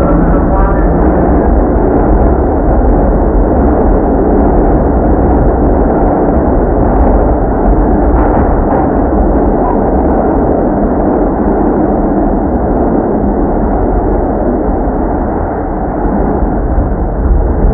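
New York City subway train running between stations, heard from inside the car: a loud, steady rumble of the train moving along the track.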